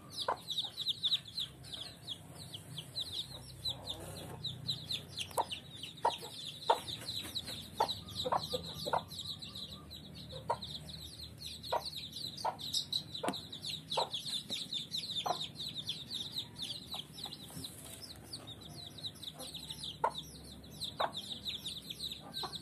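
Kampung chicks peeping without pause in a rapid, high chorus, while a hen clucks in short low notes about once a second.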